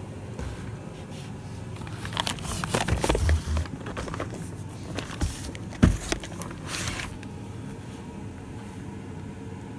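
Boxed fireworks and cardboard packaging being handled and shifted in a cardboard box: a few seconds of rustling, scraping and knocking, with one sharper knock a little past the middle, over a steady low hum.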